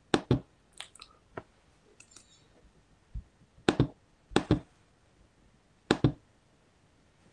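About ten short, sharp clicks and taps at irregular intervals, typical of a computer mouse and keyboard being used. The click about six seconds in coincides with a presentation slide being advanced.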